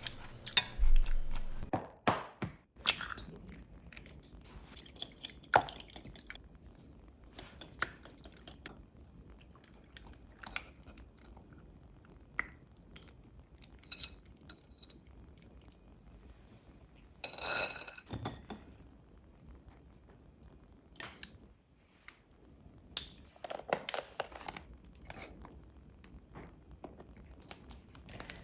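Kitchen handling sounds: scattered clinks, taps and knocks of dishes and utensils, with a few louder clusters of clatter.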